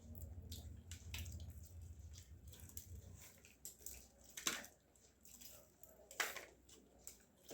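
Faint wet mouth sounds of eating fried chicken: small clicks and squishes of chewing, with two sharper clicks about four and a half and six seconds in. A low hum runs underneath and stops about three seconds in.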